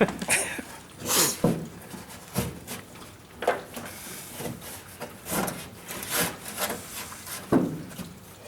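Irregular rubbing and scraping with scattered knocks, roughly one every second, as of tools and wood being handled.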